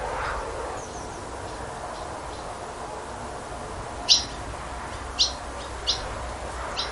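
Barn swallows calling in flight: faint twittering near the start, then four short, sharp calls in the second half, over steady background noise.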